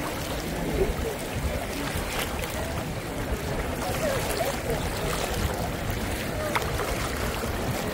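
Shallow seawater sloshing and splashing around wading legs, with the chatter of a large crowd of voices.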